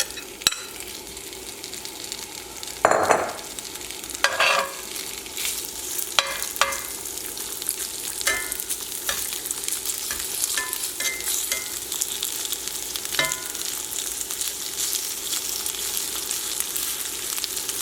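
Coated shrimp sizzling steadily in hot oil in a frying pan, with a few short scrapes and clinks of a metal utensil against the pan as the pieces are moved apart.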